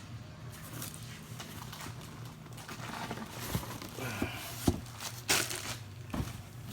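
Subwoofer packaging being handled, crinkling and rustling, with a few sharp knocks from about three seconds in, over a low steady hum.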